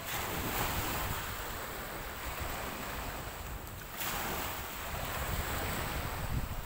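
Small sea waves washing onto the beach, with wind rumbling on the microphone.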